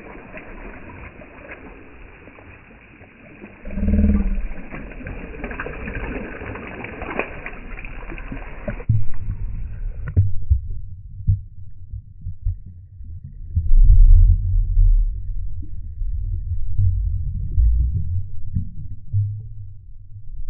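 Lake water lapping and splashing at the surface, with a brief low thud about four seconds in. About nine seconds in the camera goes underwater and the sound turns abruptly muffled: heavy low rumbles and thumps of water moving around the submerged microphone.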